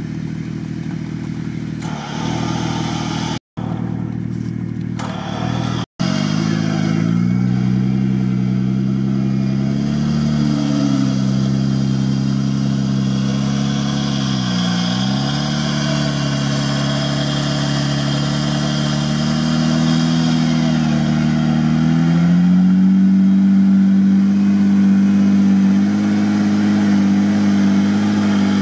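Jeep Wrangler Rubicon winching itself out of deep mud: its engine and winch running under load as a steady mechanical drone. The pitch dips briefly about halfway through and steps up a little after about three-quarters of the way. There are two brief breaks in the sound in the first few seconds.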